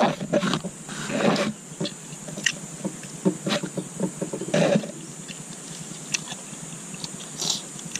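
People eating rice and chicken with their bare hands at close range: chewing, lip smacks and scattered small clicks, with a couple of short low murmurs.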